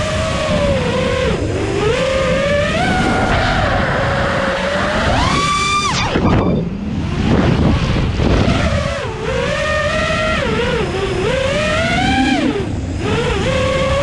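FPV quadcopter's brushless motors whining, the pitch rising and falling with the throttle, picked up by the on-board camera with wind rushing over its microphone. A little before six seconds in the whine climbs steeply, then drops away into a couple of seconds of wind rush as the throttle is cut, before swinging up and down again.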